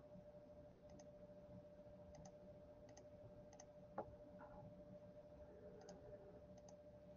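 Near silence: faint, scattered small clicks, roughly one a second, over a faint steady hum, with one sharper tick about four seconds in.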